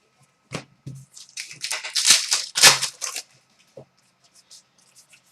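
Trading cards and their packaging being handled: a run of short rustling, crinkling strokes, loudest in the middle, then a few faint ticks.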